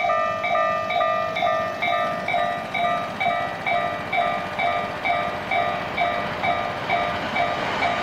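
Japanese level crossing warning bell ringing steadily, an electronic ding at about two and a half strikes a second, signalling that a train is approaching and the crossing is closed.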